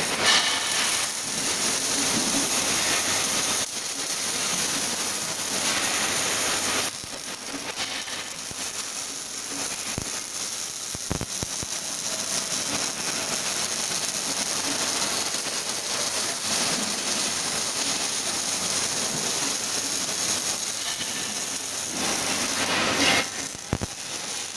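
Two robotic arc-welding torches welding an auto-rickshaw frame: a steady hiss of the welding arcs, dropping in level twice in the first seven seconds, with a few brief clicks near the middle and a short louder stretch near the end.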